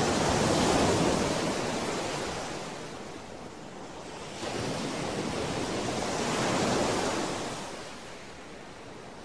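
Rushing noise with no tone in it, a whoosh sound effect under an animated outro. It swells about a second in, eases off, swells again around five to seven seconds in, and fades.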